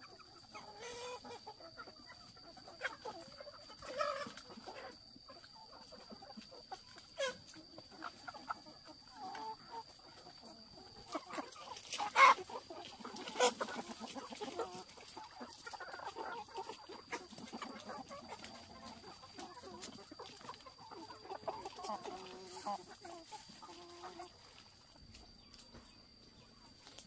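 A flock of free-range chickens clucking and calling, over a thin steady high tone. Two louder, sharp sounds stand out about twelve and thirteen seconds in.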